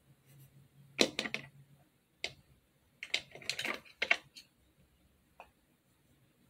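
Sharp clicks and short clattering taps of small plastic grooming items being handled, coming in irregular clusters about once a second.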